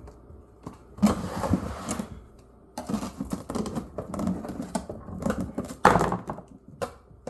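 Clattering and scraping of a pry tool working the tabs of a shipping box open, with irregular clicks and several sharp knocks; the loudest knock comes about six seconds in.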